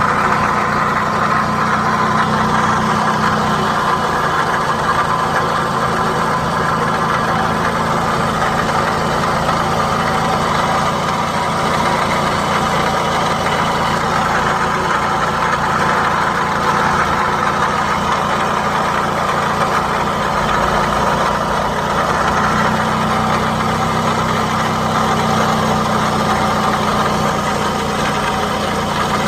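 Toyota Camry XV40's 2.4-litre four-cylinder engine (2AZ-FE) idling, heard in the engine bay with an extraneous noise that is present only while the engine runs. A low hum cuts out about four seconds in and comes back about twenty-two seconds in.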